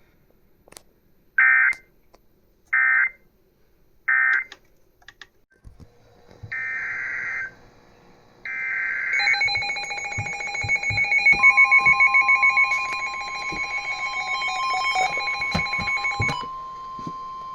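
Emergency Alert System SAME header: three short bursts of warbling data tones a little over a second apart, followed by more data bursts and overlapping steady alert tones. A single steady attention tone near 1 kHz comes in about two-thirds of the way through and keeps going. Together they announce a new severe thunderstorm warning.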